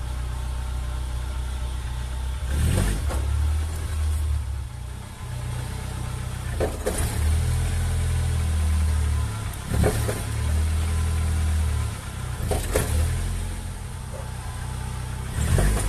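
Chevy Corsa engine running while the car is driven, with five sharp, dry knocks a few seconds apart: the knock the owner traces to the driver-side front wheel, heard when accelerating or braking.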